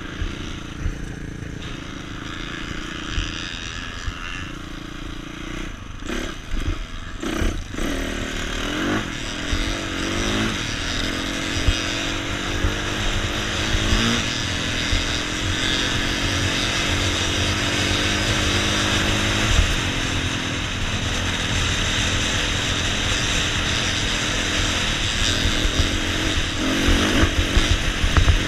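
Dirt bike engine heard from on board while riding, its pitch rising and dropping back several times as it pulls through the gears, over a steady rushing noise. There is a short patch of clatter about six to eight seconds in.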